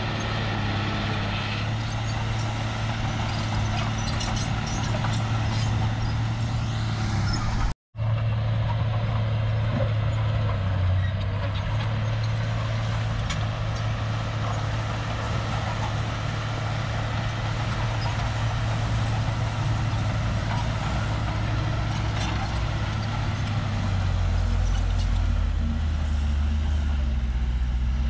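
Crawler bulldozer's diesel engine running steadily under working load, with a deeper rumble coming in near the end. The sound cuts out completely for a split second about eight seconds in.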